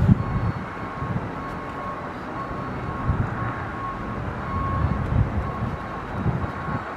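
Steady outdoor background rumble of passing road traffic, with wind buffeting the microphone in irregular low gusts. A faint high tone pulses on and off throughout.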